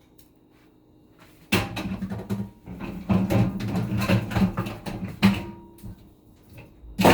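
Rattling and knocking from the dishwasher's racks and door being handled, starting suddenly about a second and a half in, with a loud knock near the end.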